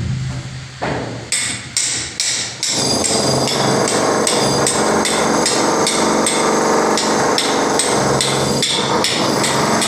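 Hammer blows on masonry during plumbing work: five separate strikes in the first three seconds, then a continuous rapid hammering that runs on.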